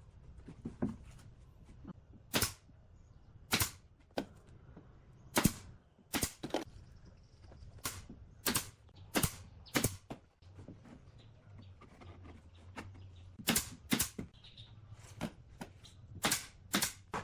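A series of about fifteen sharp knocks from tools striking the hardwood, coming unevenly at roughly one a second, some in quick pairs, with a pause of about three seconds midway.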